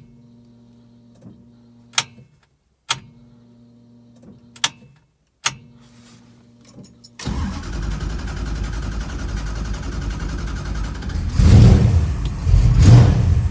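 Ignition cycled three times, each time bringing a low electric hum of about two seconds from the fuel-injection system priming, with sharp clicks in between. About seven seconds in, the 440 cubic-inch V8 fires and runs, swelling louder twice near the end under throttle: a cold start after the car has sat for a year and a half.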